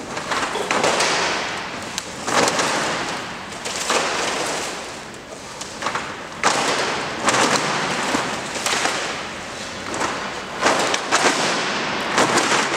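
Aluminium roller shutter slats clattering and clacking against one another and the concrete floor as the rolled curtain is unrolled: a run of rattling swells with sharp clacks, one every second or two.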